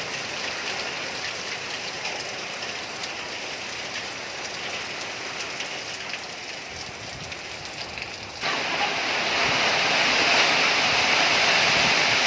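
Heavy rain falling steadily as an even hiss with scattered drop ticks, which suddenly grows louder and brighter about eight and a half seconds in.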